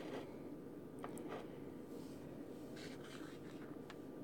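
Faint handling sounds: a couple of light clicks about a second in, then soft rubbing, as a small lava rock is taken from a glass jar and set down on a stone countertop.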